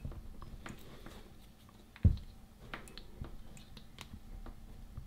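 Small clicks and scrapes of a plastic pry tool working under the spot-welded metal strips on a lithium-ion battery pack's cells, with one louder knock about two seconds in.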